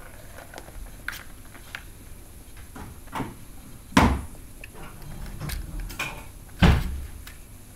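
Light clicks and taps on the hard plastic track and ball of a Catit Play Circuit cat toy as a kitten bats at it, with two loud knocks, about four seconds in and near the end.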